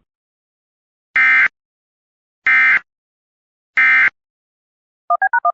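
Emergency Alert System End-of-Message signal: three short bursts of SAME digital data tones, about 1.3 s apart, closing the alert. Near the end a quick run of short beeps starts.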